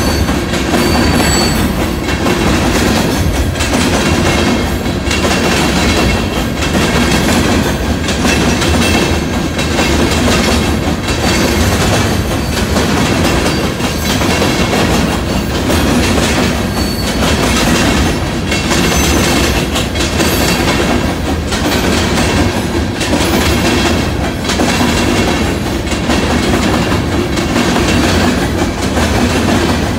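Freight train of open-top aggregate cars rolling past at a grade crossing: a steady, loud rumble of wheels on rail, broken by repeated clacks as wheelsets pass over rail joints.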